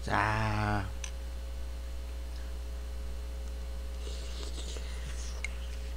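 Steady low electrical mains hum, with faint sounds of eating about four seconds in: rustling, a light utensil click and chewing.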